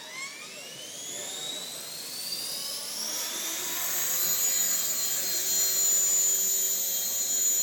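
Align T-Rex 450 electric RC helicopter spooling up: the high whine of its electric motor and drive gears rises steeply in pitch over the first three seconds or so, then holds steady and grows louder as the rotor reaches speed.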